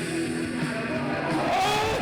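Background music, with held notes and a voice-like gliding line near the end.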